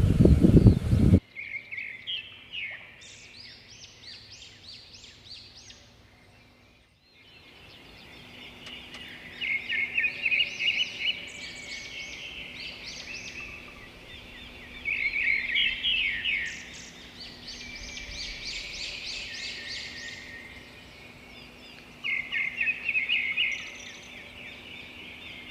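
A songbird singing in bursts of fast, rapidly repeated high notes, each burst lasting a second or two, with scattered chirps between. A louder noise cuts off about a second in.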